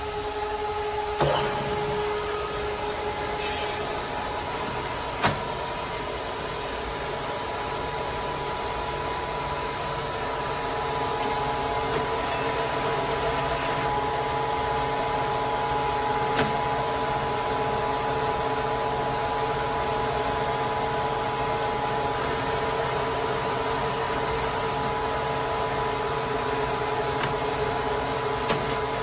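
Willis 500VS vertical milling machine running under power: a steady motor and gear whine holding several pitches, with sharp clicks about a second in and about five seconds in as its levers are worked.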